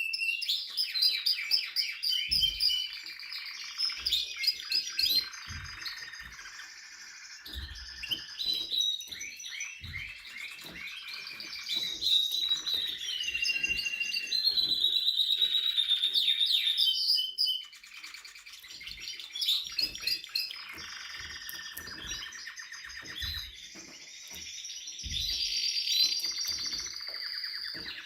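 Spanish Timbrado canary singing a long, high-pitched song of rapid trills and held whistled notes. The song pauses briefly about two-thirds of the way through, and faint low knocks are heard now and then.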